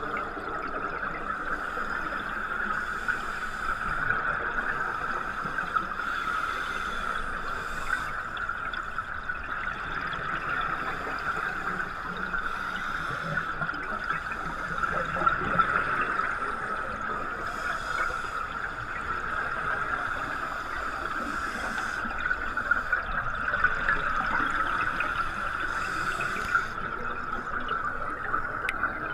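Underwater sound heard through a camera's waterproof housing: a steady muffled hiss with a constant mid-pitched band. Every few seconds comes a brighter rush of scuba regulator exhaust bubbles.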